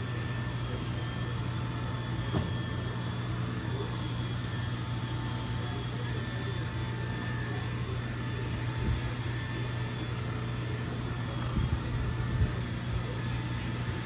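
Roomba robot vacuum running: a steady whine over a constant low hum, with a few light knocks.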